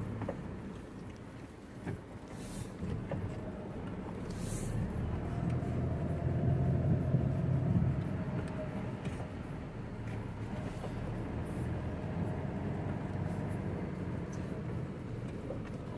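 Truck engine running while driving, heard from the cab, growing louder for a couple of seconds near the middle. Two short hisses come a few seconds in.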